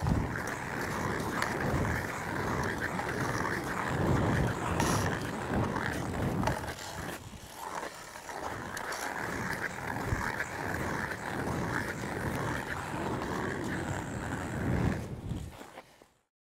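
Hockey skate blades scraping and gliding on ice during long forward strides: a rough hiss that swells with each push, every second or two. It stops abruptly near the end.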